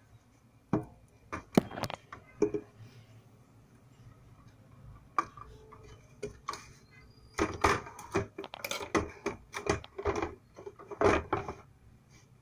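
Top cover of a Prestige induction cooktop being lowered and fitted onto its base: scattered knocks and clatters, a few near the start and a dense run in the second half.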